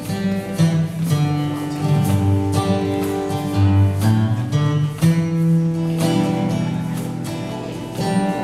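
Live acoustic band playing an instrumental passage: a strummed acoustic guitar over held keyboard chords.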